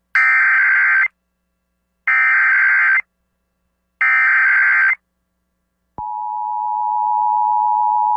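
Emergency Alert System SAME header: three bursts of buzzy digital data tones, each just under a second long with about a second of silence between them. About six seconds in, the steady two-tone EAS attention signal starts. Together they open an EAS alert, here a county Required Monthly Test.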